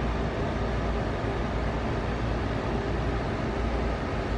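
Steady background hum and hiss, strongest at a low pitch, with no distinct events.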